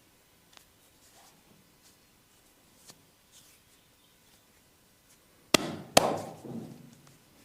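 Massage strikes: after faint rubbing and light ticks, two sharp, loud slaps of the masseur's hands on the body land about half a second apart, each dying away quickly.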